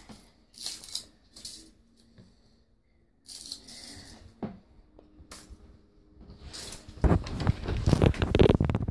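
Foil wrapper of a Kinder Surprise egg crinkling as it is unwrapped: a few short crackles, then louder, continuous crinkling for the last two seconds.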